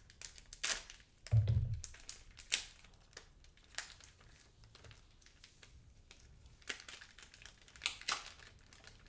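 Thin plastic protective wrap crinkling and crackling as it is slit with a knife and peeled off a plastic phone back housing, in scattered short crackles, with one dull thump about a second and a half in.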